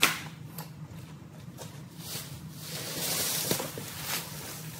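An object tossed onto a junk pile lands with a sharp clatter, then old plastic sheeting crinkles and rustles as it is gathered up by hand, with a few small knocks.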